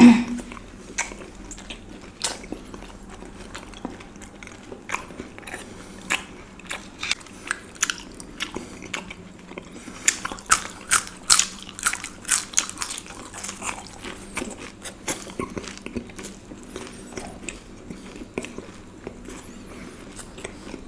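Close-miked mouth sounds of eating Indian sweets: biting and chewing, a long run of short wet clicks and crunches that grows busiest about ten to thirteen seconds in. A brief low sound comes at the very start.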